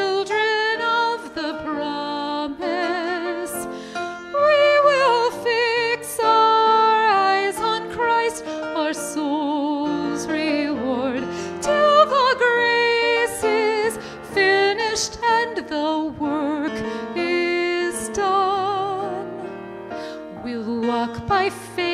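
A woman singing a hymn solo into a microphone, holding long notes with wide vibrato, accompanied by grand piano.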